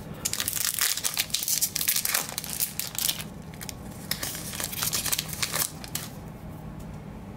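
Crimped plastic wrapper of a Topps Chrome baseball card pack being torn open and crinkled by hand: a dense run of crackles that thins to a few sparse clicks in the last second or so.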